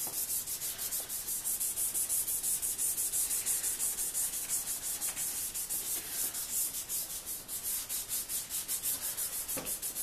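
Hand wet-sanding of a yellowed plastic headlight lens on a 2003 Subaru Forester with a purple number-three sanding pad from a Rain-X headlight restoration kit, sprayed with lubricant: quick, even back-and-forth rubbing strokes, several a second, with a steady scratchy hiss. The lens is being sanded smooth to the touch before the restorer is applied.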